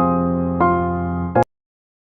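Background music of soft electric piano chords, with new chords struck near the start and just over half a second in, ending suddenly about a second and a half in, followed by silence.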